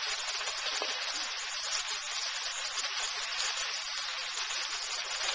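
Broccoli and onions sizzling steadily as they are stir-fried in a pan.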